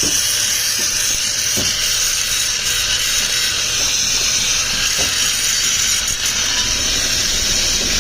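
Electric arc welding on a propeller shaft: a steady, loud sizzling hiss with a few faint crackles as the weld is laid.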